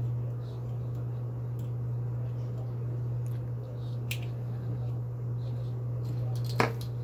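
Small clicks and rustles of hands working monofilament fishing line, hooks and cut plastic straw pieces, over a steady low hum; one sharper click near the end.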